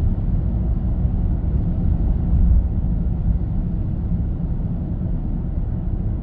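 Steady low road and wind noise inside the cab of a 2025 Chevrolet Silverado EV at highway speed, about 85 km/h, as it slows gently under regenerative braking with the accelerator released.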